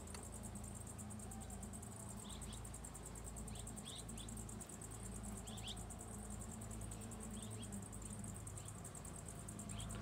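Honeybees droning low and steadily around the open hive, under a steady high-pitched insect trill. A few short bird chirps come through in the middle.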